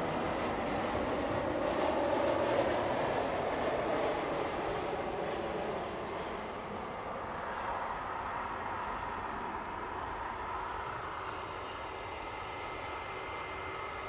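Jet airliner on its landing approach: engine noise that is loudest a couple of seconds in and then slowly fades, with a thin steady high whine over the rumble.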